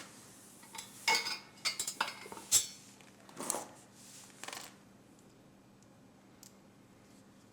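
Metal parts and a hand tool clinking and clattering while a stripped screw on a metal fireplace tool set is worked on, a run of sharp clinks that stops about five seconds in.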